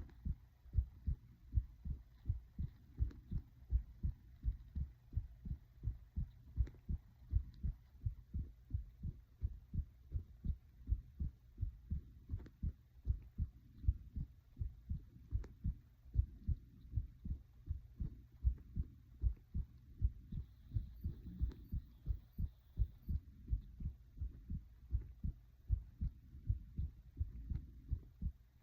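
A person's heartbeat: steady, regular low thumps that carry on evenly.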